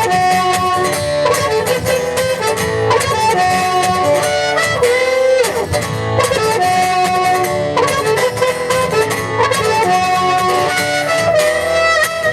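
Live acoustic guitar strumming steadily under a lead melody of held notes: an instrumental break in a song.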